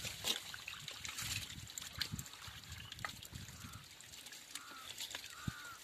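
Faint scattered wet splashes and taps from live small fish flapping in a wet net, with water trickling.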